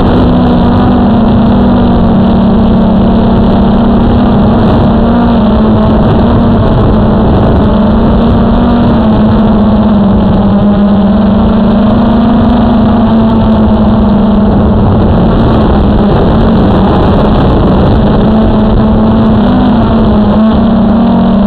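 Blade camera drone's motors and propellers running in flight, heard close on its own camera: a loud, steady buzz that wavers slightly in pitch as it manoeuvres.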